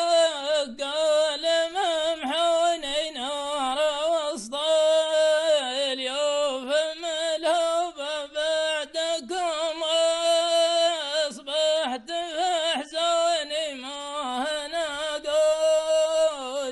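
A man chanting a Nabati poem unaccompanied in the sung shilla style. One voice draws out long wavering, ornamented notes, with short breaks for breath.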